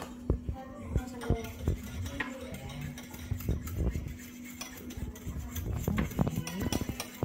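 Metal utensil clinking and scraping against a bowl in a series of irregular small knocks, over a steady low hum.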